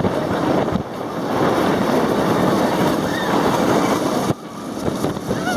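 Loud rush of wind over the microphone mixed with the rumble of a Bolliger & Mabillard flying roller coaster train running at speed. The rush drops off abruptly about four seconds in, then builds again.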